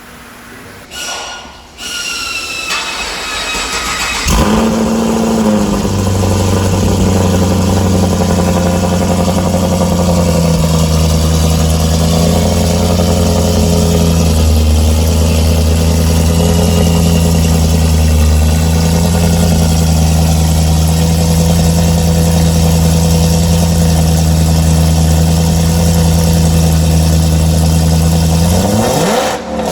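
The big-cam 6.0-litre V8 of the modified Pontiac G8 GT / Holden Commodore SSV starting. It catches with a sudden loud firing about four seconds in and settles into a steady idle, then is revved up near the end.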